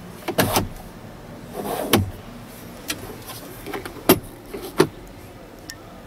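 Hard plastic clicks and knocks from the cab's dashboard trim being handled: a sharp click about four seconds in as the glovebox latch releases, and another knock a moment later as the glovebox lid swings open. Earlier, a few clicks come from the controls below the centre dashboard.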